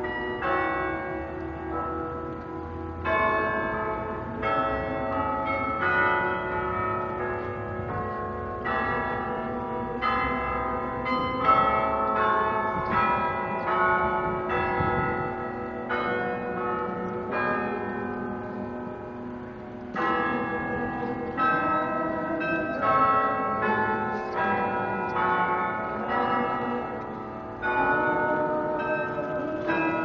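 Peace Tower carillon bells playing a slow tune, bells struck one after another and each left ringing on under the next.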